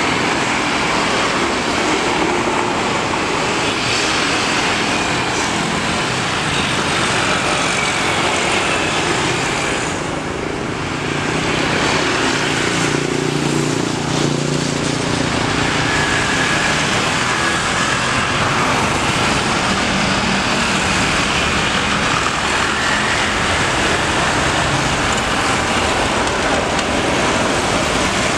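Airbus A330-243 airliner's twin Rolls-Royce Trent 700 turbofan engines at takeoff thrust during the takeoff roll: a loud, steady jet noise with a faint whine over it, easing briefly about ten seconds in.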